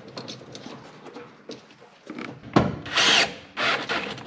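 Cordless drill/driver driving a screw, after a little light handling noise. The motor whines in two short runs, the first just past halfway and the second, briefer, near the end.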